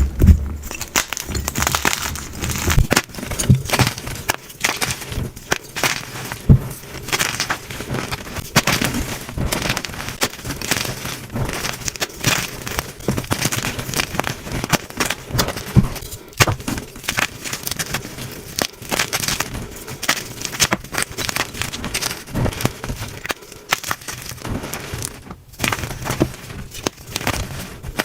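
Blocks of gym chalk being crushed and crumbled, a dense, irregular run of crunchy crackles and snaps.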